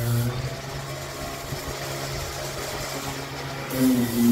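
Handheld electric sander running against a steel hull bottom with a steady hum. It drops away about a third of a second in and starts up again just before the end.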